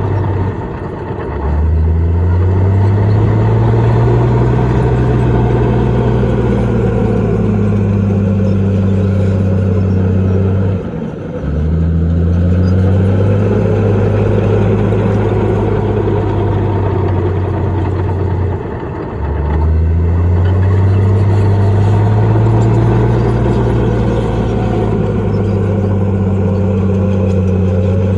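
Bulldozer's heavy diesel engine running under load. Its note drops away briefly three times, near the start, about eleven seconds in and near twenty seconds, then each time climbs back up and holds steady.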